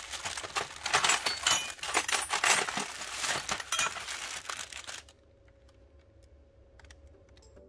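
Plastic bags crinkling and loose metal hardware clinking as a hand rummages through a bin of parts. The rummaging stops about five seconds in, leaving a few faint clicks.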